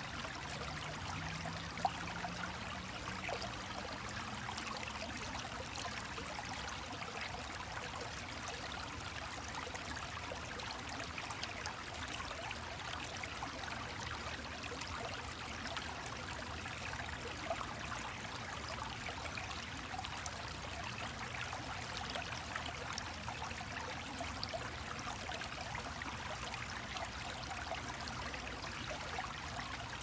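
A shallow stream trickling over rocks and gravel, a steady rush of water with no pauses.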